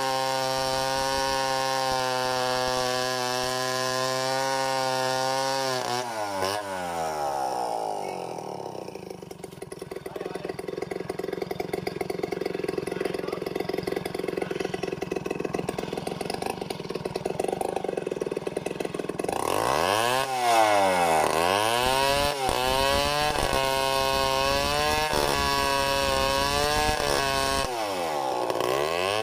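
Chainsaw ripping lengthwise along a log in freehand milling, running steadily at full throttle under load. About six seconds in it drops to idle. Near two-thirds of the way through it revs back up into the cut, its engine speed dipping and recovering a few times.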